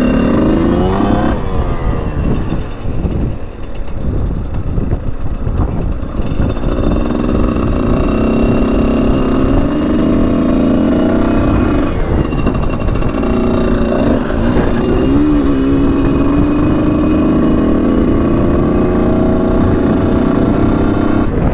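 Two-stroke single of a Husqvarna SMS 125 motorcycle under way, its pitch climbing and falling as the throttle is opened and closed through the gears. Wind buffets the microphone throughout.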